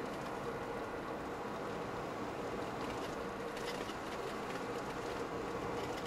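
Steady engine and road noise inside a car's cabin while driving, with a faint steady hum running under it.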